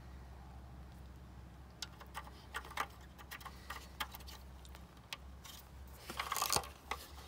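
Hard plastic clicks and knocks as a Honda Civic taillight housing is handled and its bulb sockets are twisted, a scattered run of sharp clicks starting about two seconds in, with a longer scraping rattle near the end.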